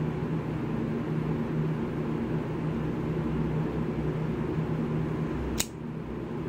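A steady low machine hum with a few constant tones, interrupted by one sharp click about five and a half seconds in.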